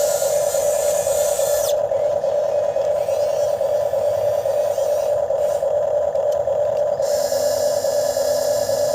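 Radio-controlled excavator's motor and hydraulic pump whining at a steady pitch. A higher hiss stops sharply about two seconds in and comes back near the end.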